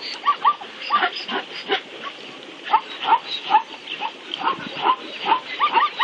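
A large herd of wildebeest calling: many short grunting calls overlapping, several a second.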